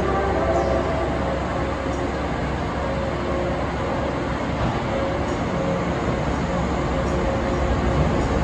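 JNR-type 413 series electric multiple unit pulling slowly out along the platform: a steady rumble of motors and wheels with faint humming tones, growing a little louder near the end.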